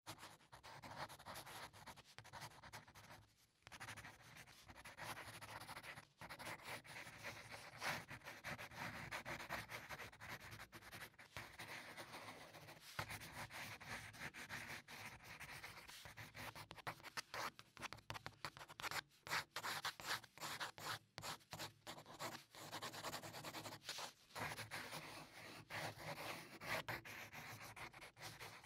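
Drawing on paper: quick, irregular scratchy strokes of a pen tip across the sheet, with short pauses between lines.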